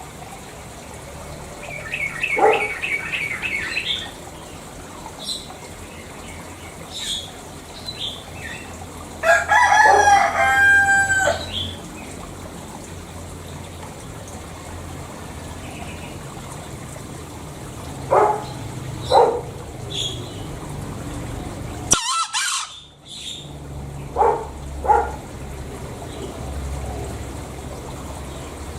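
Green junglefowl (Gallus varius) calling: one loud crow about ten seconds in, with a shorter chirping call near the start and several brief calls later on.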